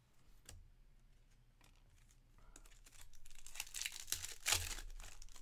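Foil wrapper of a Topps baseball card pack crinkling and tearing as it is opened by hand, starting about three seconds in after a few faint handling ticks.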